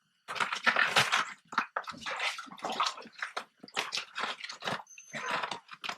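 A fish thrashing and splashing in the water of an ice-fishing hole as it is pulled up and landed: a rapid, irregular run of splashes and sloshes.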